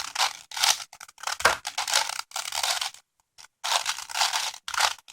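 A 5x5 Rubik's cube being turned layer after layer: quick rasping clicks of plastic pieces sliding past each other, in a rapid run of turns with a short pause a little after three seconds in.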